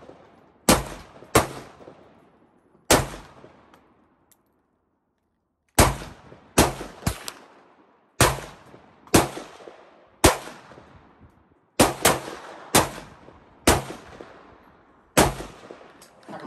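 Gunfire: about fifteen sharp shots at an irregular pace, some in quick pairs, each trailing off in a short echo. There is a pause of nearly three seconds after the first three shots.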